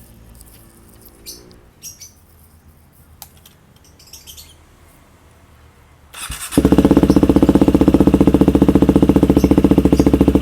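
A few faint clicks, then about six seconds in a Husqvarna Svartpilen 401's single-cylinder engine starts and settles into a loud idle with a rapid, even pulse. It is running through a Coffman's exhaust with the DB killer removed, which sounds much better than with it fitted.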